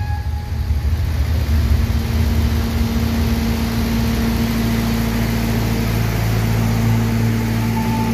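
Generator engine running at a steady speed, a constant hum with no music playing.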